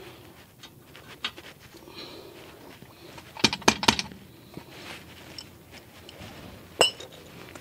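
Sharp metallic clicks and clinks of hand tools working on rear brake hardware, with a quick cluster of loud clicks about halfway through and a single clink near the end.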